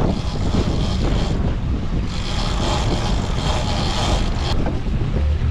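Wind buffeting the microphone over a trolling fishing boat's running engines and the sea, a steady loud rumble and rush. A single sharp click comes about four and a half seconds in.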